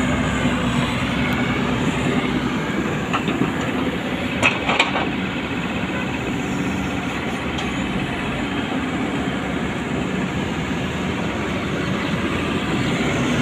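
JCB 3DX backhoe loader's diesel engine running hard while it works, a steady loud machine noise. Two sharp knocks come about four and a half seconds in.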